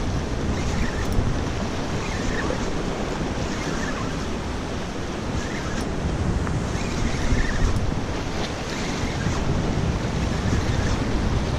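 Wind buffeting the microphone in a steady low rumble, over small waves washing against the jetty's rocks.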